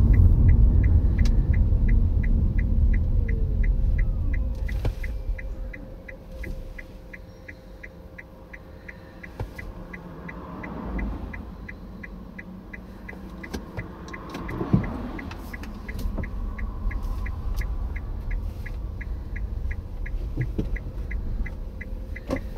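Inside a car cabin: tyre and road rumble as the car slows, dying away after about five seconds as it comes to a stop, leaving the engine idling. An even ticking at about three ticks a second runs throughout, typical of the turn-signal indicator while pulling in to the verge.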